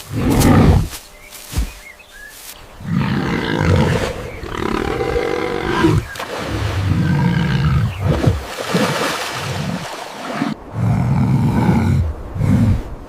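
An animal roaring: a run of about five long, loud calls, one after another.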